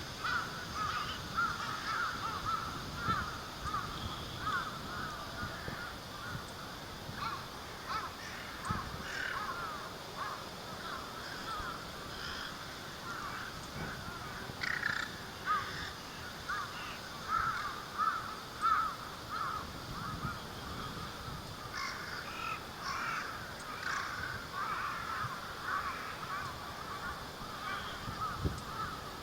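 A large flock of rooks calling constantly, many short overlapping caws, with strong wind rumbling on the microphone.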